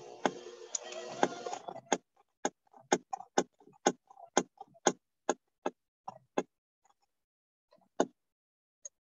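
Electric hand mixer beating peanut-butter dough in a plastic bowl, heard through a video call's noise suppression, which strips out most of the motor sound. There is faint noise for the first couple of seconds, then a run of sharp clicks about two a second as the beaters knock against the bowl, and one more click near the end.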